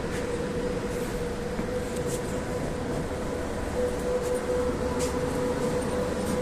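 Moskva-2024 metro train heard from inside a carriage: running rumble with a steady whine, which grows stronger about four seconds in.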